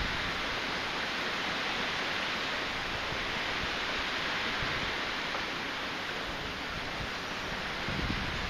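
Typhoon wind: a steady rushing hiss, with a gust buffeting the microphone near the end.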